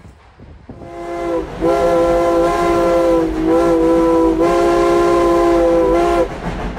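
Steam locomotive whistle sounding several notes together: a short blast, then a long blast held for about four and a half seconds that wavers slightly before cutting off. A low rumble from the train runs underneath.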